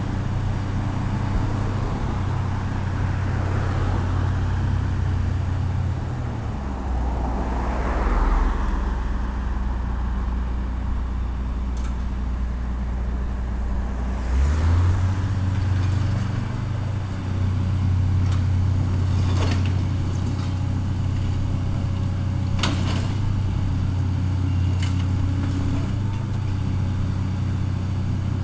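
Diesel engine of a demolition excavator running steadily; it drops to a lower note about six seconds in and revs back up about halfway through. Several sharp knocks come in the second half.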